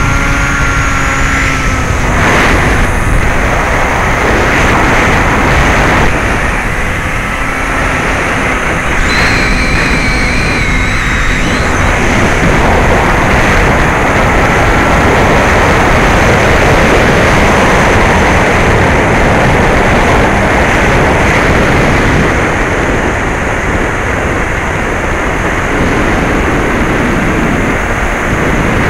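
A Bixler 2 electric RC plane in flight, heard from its onboard camera: a steady rush of airflow noise, with the whine of its brushless motor and 9x6 propeller showing through at the start and again about ten seconds in.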